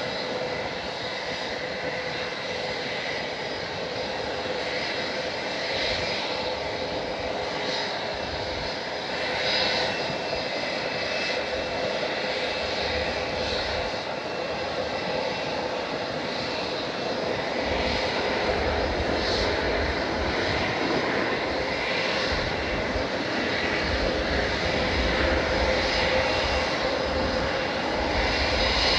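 Large jet airliner's engines running with a steady whine. The sound grows a little louder and gains a low rumble about two-thirds of the way through.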